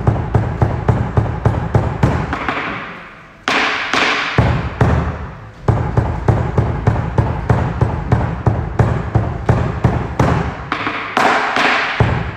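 Percussion keeping time for dance practice: a steady beat of thuds about three a second. The beat briefly fades twice and comes back with a few brighter crashing hits.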